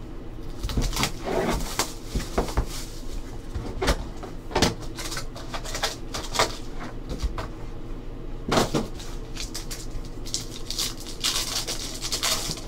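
Hands handling a cardboard trading-card box and foil card packs: scattered taps, clicks and rustles, a louder knock a little past the middle, then foil wrappers crinkling near the end.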